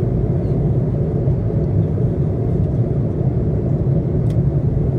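Steady low roar inside the passenger cabin of an Airbus A330-300 with Rolls-Royce Trent 700 engines in cruise flight: engine and airflow noise.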